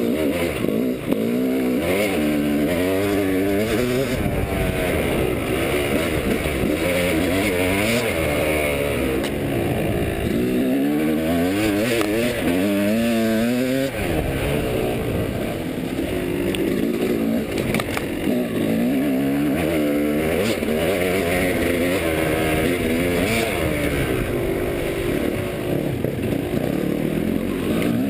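Yamaha dirt bike engine revving up and down with the throttle while the bike climbs a rocky trail, its pitch rising and dropping again and again, heard from on the bike. A few sharp knocks come through over the engine.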